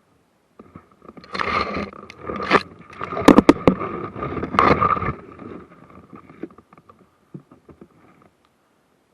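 Rustling and scraping close to the microphone, with a quick run of sharp clicks about three and a half seconds in.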